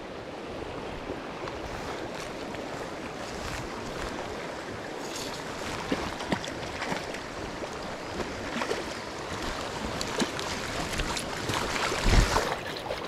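Steady rush of a shallow, riffled stream flowing over stones, with scattered light clicks and knocks and one louder thump near the end.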